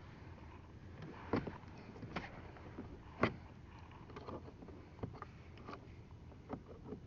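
Scattered light clicks and scrapes of a knife prying at the plastic of a car's broken mirror adjustment knob, with two sharper clicks about a second and about three seconds in.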